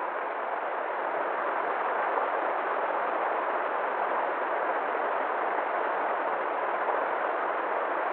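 River water flowing and rushing in a steady, even stream, with no rise or fall.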